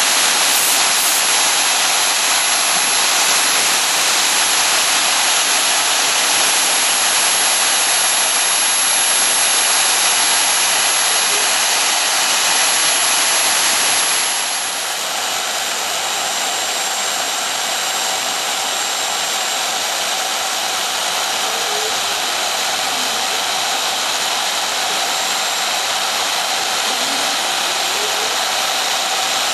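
High-speed CNC router spindle running with its end mill cutting into foam, a steady hiss. A thin high whistle stops about halfway through, where the sound drops a little.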